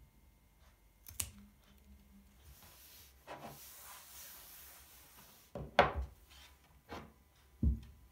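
A single scissors snip through a basil stem, then a cloth rubbing across a wooden tabletop for a few seconds. After that come a few sharp knocks and a low thud near the end as a glass jar and a glass are set down on the wooden table.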